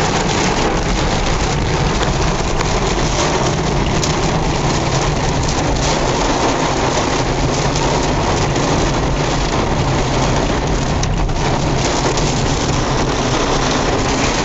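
Heavy rain falling steadily, a dense even hiss of drops on hard surfaces.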